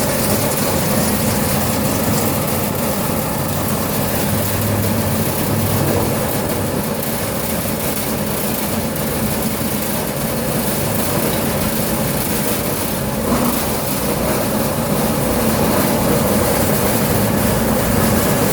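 A machine running steadily: a loud, even noise with a constant hum that does not change.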